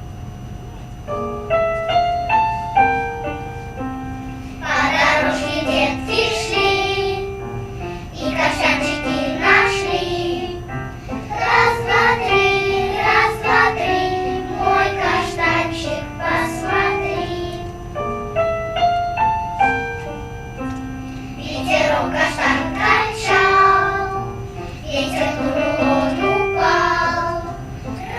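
Children's choir singing with piano accompaniment. A short piano introduction starts about a second in, the choir comes in after about four seconds, and a brief piano interlude comes a little past the middle before the singing resumes.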